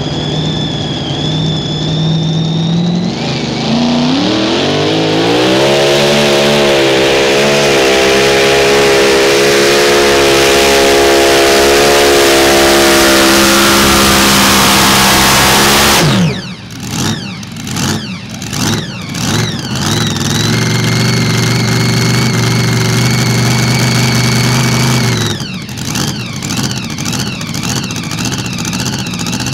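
Mini rod pulling tractor's supercharged engine idling, then revving up about three seconds in and running at full throttle through a pull for about twelve seconds. The throttle is cut suddenly about sixteen seconds in, and the engine then runs at lower revs with uneven blips of the throttle.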